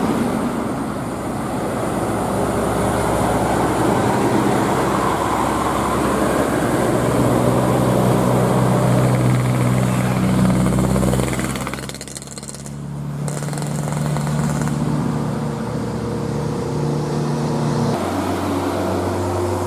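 Bus engine running steadily under load with road noise; its sound drops away briefly about twelve seconds in, then comes back, and its pitch changes near the end.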